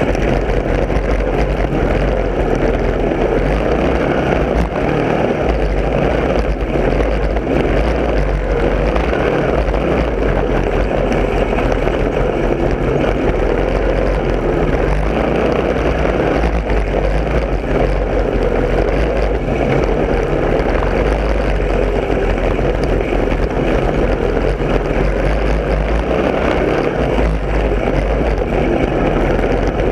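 Lawn mower engine running loud and steady at high throttle, with no pauses.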